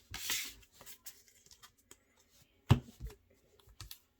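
Pokémon trading cards and their packaging being handled on a table: a short rustle near the start and light scattered clicks, with one sharper knock a little past halfway.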